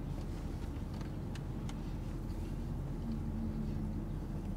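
Steady low hum of a vehicle's engine idling, heard inside the cabin, with a few faint clicks of chewing about a second in.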